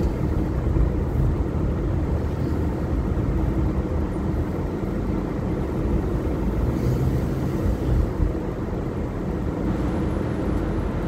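Steady engine and road noise heard from inside a moving car.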